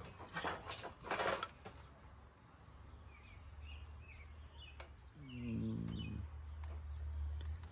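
Small birds chirping in the background, with two short rustling scrapes in the first second and a half and a couple of sharp clicks as trimmer parts are handled. A brief low pitched sound comes about five seconds in.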